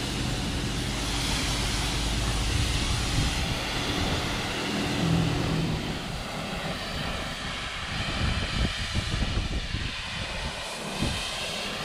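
Self-serve car wash pressure wand spraying water onto a motorhome: a steady rushing hiss of high-pressure spray.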